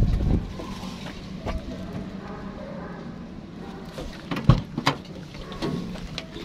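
A few sharp knocks and bumps against a car's door and body over a low background, the loudest about four and a half seconds in, with another just after.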